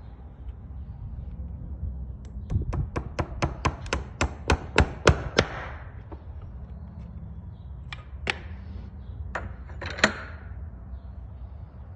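A farrier's hammer taps metal in a quick run of about fifteen light blows, some five a second and growing louder, then a few single taps. These are typical of nailing on or seating an aluminum horseshoe.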